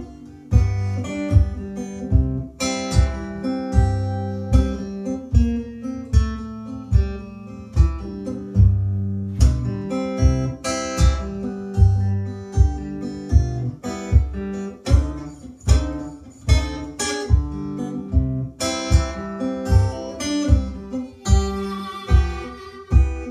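Acoustic guitar strummed in a steady rhythm, with a strong low bass note on each beat: an instrumental passage of a song, with no singing.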